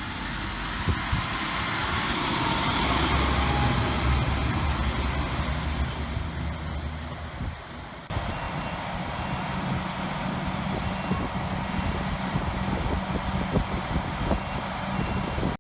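Diesel engine of large harvest machinery running steadily; the drone changes abruptly to a different engine sound about eight seconds in.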